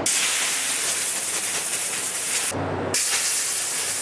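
Compressed-air blow gun hissing in a long blast, cut off briefly about two and a half seconds in, then blowing again.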